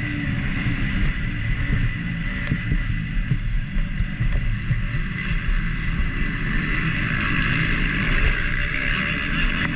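KTM SX-F 250 four-stroke single-cylinder motocross engine running hard, its revs rising and falling continuously with the throttle and gear changes, with rushing wind noise.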